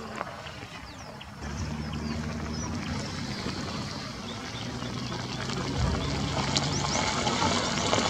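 Steady low engine hum, setting in about a second and a half in, with small birds chirping faintly in the background.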